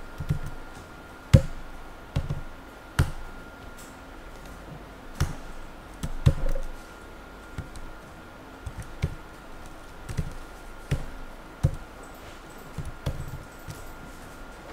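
Computer keyboard keystrokes: irregular clacks and taps, one or two a second with short pauses, over a faint steady high-pitched tone.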